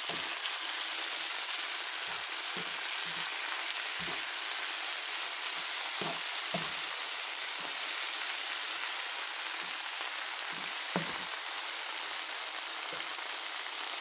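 Vegetables, meatballs and sliced sausage sizzling steadily in a hot pan as they are stir-fried with a wooden spatula, with irregular soft knocks of the stirring against the pan and one sharper knock late on.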